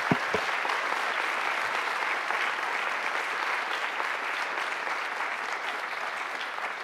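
Audience applauding: a steady patter of many hands clapping that slowly dies down toward the end, with two brief thumps just at the start.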